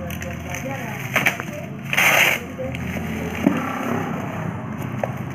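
Plastic bubble wrap crinkling and rustling as it is cut and pulled off a small cardboard box, with a louder tearing burst about two seconds in and a few sharp clicks.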